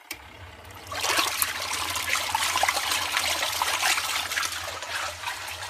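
Zeny portable twin-tub washing machine's wash tub agitating a load of clothes in a rinse cycle: the motor hum comes on right at the start, and water churns and splashes from about a second in.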